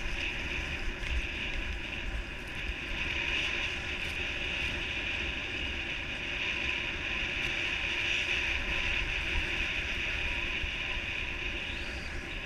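Wind rushing over the camera microphone, with a low buffeting rumble, and the steady hiss of skis sliding over groomed snow during a downhill run.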